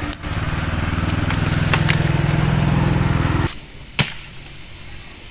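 An engine running steadily with a low hum, cutting off abruptly about three and a half seconds in; a single sharp snap comes about half a second later.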